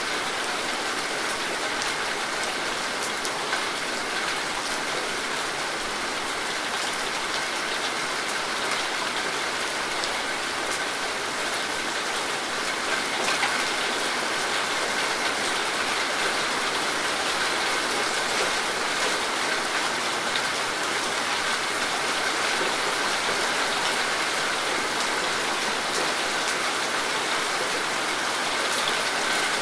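Steady rain falling: a dense, even hiss with individual drops ticking now and then.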